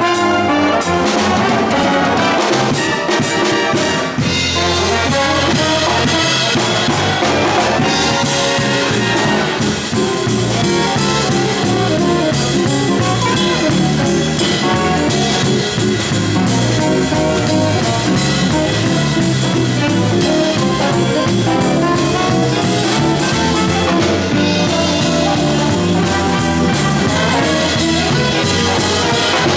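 Jazz big band playing live: brass and saxophones together with a drum kit.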